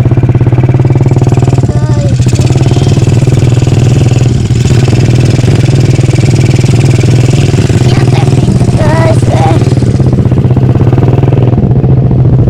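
An engine running steadily, loud and close, with a person's voice calling out briefly over it a couple of times.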